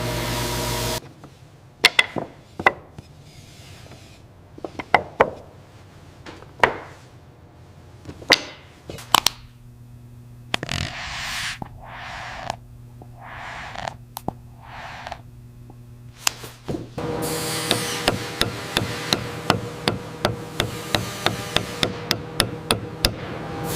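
A woodworking machine running stops suddenly about a second in. Then come scattered sharp knocks of lumber being handled, with short swells of hiss between them. About six seconds from the end a machine runs again under rapid sharp strikes, about two or three a second.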